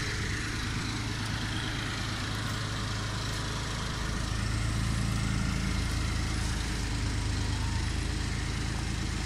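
Steady low engine hum, like a motor idling, growing slightly louder about four seconds in.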